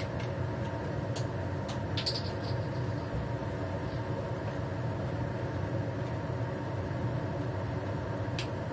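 A steady mechanical hum, with a few light knocks and a short ringing clink of kitchenware about two seconds in, and another knock near the end.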